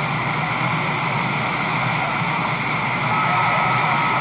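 CB radio receiver hiss and static on an open channel. A thin steady whistle joins it about three seconds in.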